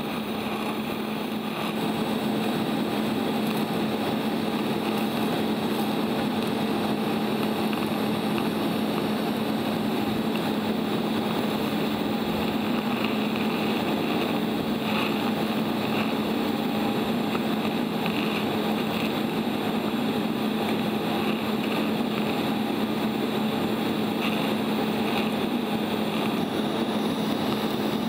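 TIG welding arc brazing a crack in cast iron with bronze filler rod, the braze just beginning to melt into the joint: a steady, even buzzing hum that runs without a break.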